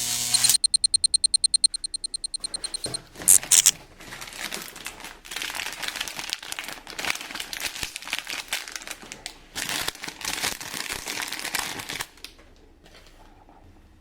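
Packaging crinkling and rustling as it is handled and opened, with irregular bursts for several seconds before it falls quiet near the end. A fast, even run of clicks comes in the first few seconds, followed by a couple of sharp bursts.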